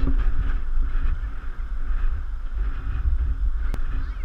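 Strong gusty wind buffeting the microphone, a deep rumble that rises and falls, with one sharp click near the end.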